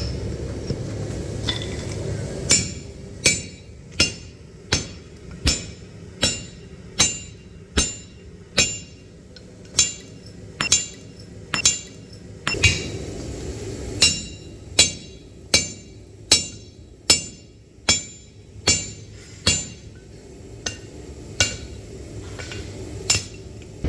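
Blacksmith's hand hammer striking steel on an anvil in a steady rhythm, about one blow every 0.8 seconds, each with a short metallic ring. There is a brief pause about halfway through, and a steady low rumble sits beneath the blows.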